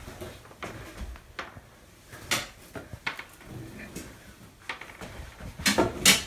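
Scattered knocks and clatters of household objects being moved and handled, with a few sharper clicks about two seconds in and a cluster near the end.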